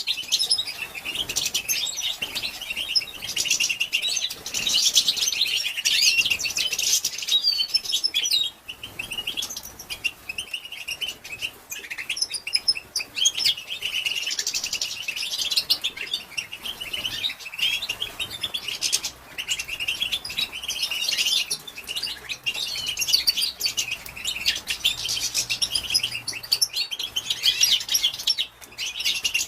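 Female European goldfinch twittering: a dense run of quick, high chirps and trills with only brief pauses, the call that keepers play to stimulate male goldfinches to sing.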